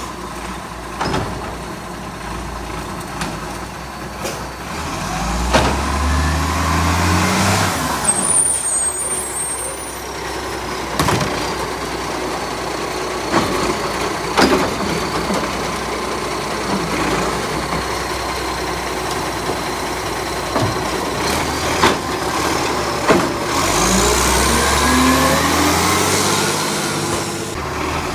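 Garbage truck engine running and revving up twice, with several sharp clanks and some air hiss. The truck has a small exhaust leak.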